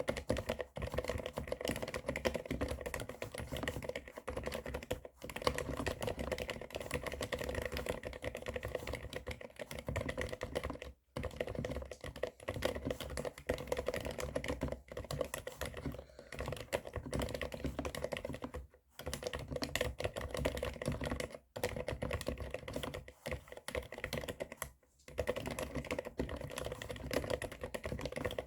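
Fast continuous typing on a mechanical keyboard with Cherry MX Silent Black linear switches (65 g). The keystrokes have a soft, scratchy sound that the typist finds close to a Topre electro-capacitive keyboard. The typing stops briefly four times.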